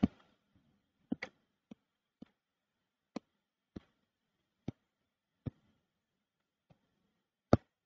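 Computer mouse clicking: about ten short, sharp clicks at irregular intervals, the last one the loudest.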